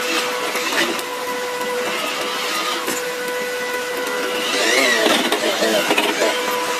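Electric motor and drivetrain of a WPL C74 Suzuki Jimny RC crawler whining at a steady pitch as it crawls along. About four and a half seconds in, the whine rises in pitch and turns rougher and louder as the tyres churn through mud and water, then settles back.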